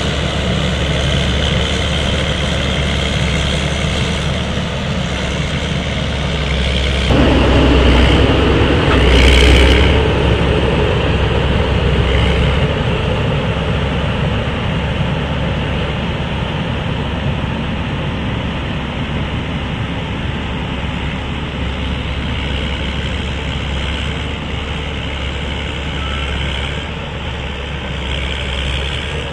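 Caterpillar 140M motor grader's diesel engine running steadily as the machine grades a dirt road with its blade down. It gets louder for a stretch about seven to ten seconds in, with a short sharp noise near the middle, then fades gradually as the grader pulls away.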